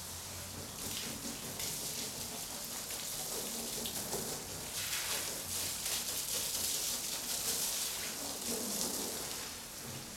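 Water from a garden hose spraying onto a car's bodywork and splashing, a hissing spray that swells and fades as the stream moves, loudest around the middle.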